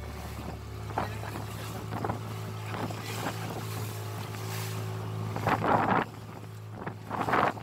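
Small wooden boat running through choppy sea: wind buffeting the microphone and waves slapping and splashing against the hull, over a steady low drone that cuts off about six seconds in. There are louder splashes about five and a half and seven seconds in.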